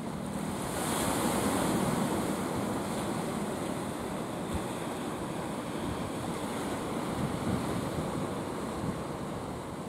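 Sea surf: a steady wash of waves that swells to a louder hiss about a second in, then eases off over the next couple of seconds.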